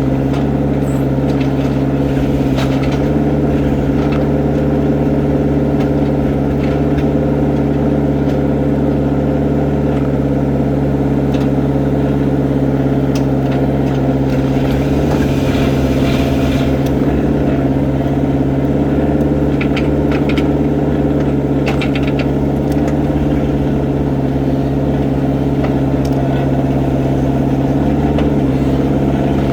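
Excavator's diesel engine running at a steady speed, with a few brief clanks.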